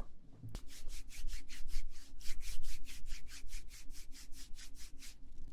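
Quick, even rubbing strokes close to the microphone, about five a second, starting about half a second in.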